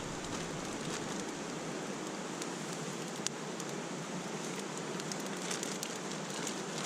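Steady rushing of a mountain stream, with faint scattered ticks over it.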